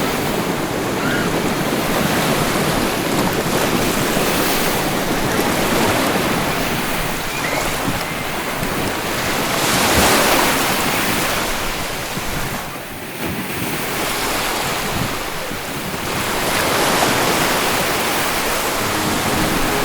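Ocean surf: waves breaking and washing in a continuous rush. The loudest surge comes about halfway through, followed by a brief lull and another build near the end.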